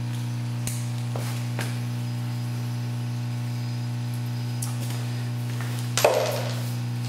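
Steady low electrical hum with a few faint ticks. About six seconds in, one sharp metal clank with a short ring as a tool is handled at an open socket set.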